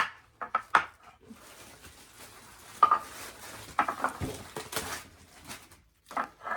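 Metal chair parts being handled during assembly: several sharp clinks and knocks, with a steady rustling hiss through the middle of the stretch.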